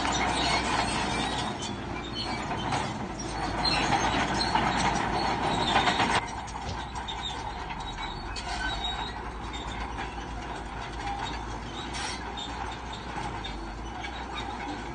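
Crawler bulldozer working: steel tracks clanking and squealing over a running diesel engine. It is louder for about the first six seconds, then drops off suddenly and goes on more quietly.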